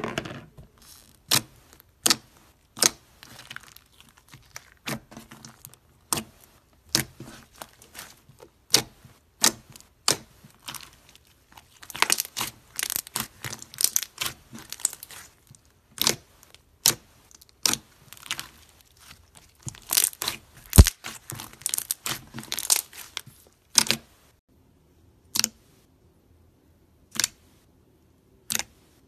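Thick white slime squeezed and pressed by hand, giving a run of sharp pops and crackles that come thickest in two spells. Near the end come a few single clicks as fingers poke blue slime.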